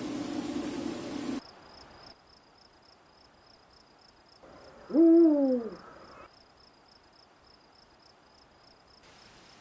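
An owl hooting once, a single drawn-out hoot about halfway through, over faint steady chirping of crickets at about three chirps a second. Background music cuts off about a second in.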